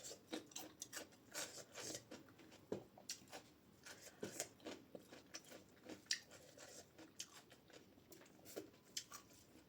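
Close-miked chewing of a mouthful of dal bhat and potato: faint, irregular clicks and smacks of the mouth, several a second.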